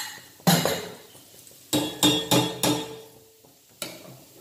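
Stainless-steel pressure cooker lid and pots clanking as the lid is handled and set down. There is a loud knock about half a second in, then a quick run of metal clanks in the middle, one leaving a short ringing tone, and a lighter knock near the end.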